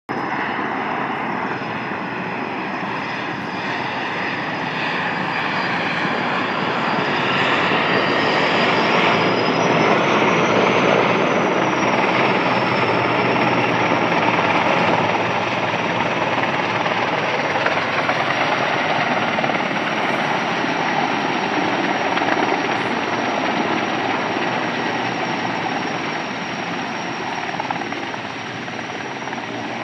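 Sikorsky S-64 Air-Crane firefighting helicopter coming in and hovering low over a lake to take on water: loud, steady rotor and turbine noise with a high turbine whine that rises slightly about ten seconds in and then holds, loudest near the middle and easing a little toward the end.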